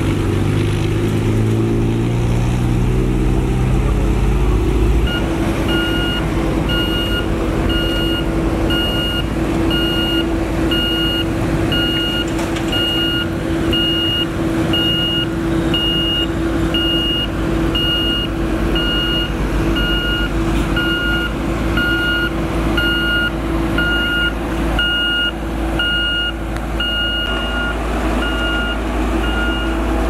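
Heavy diesel road-construction machinery running, with the engine pitch climbing in steps for the first few seconds. From about five seconds in, a road roller's reversing alarm beeps steadily, about one and a half beeps a second, over the steady engine rumble.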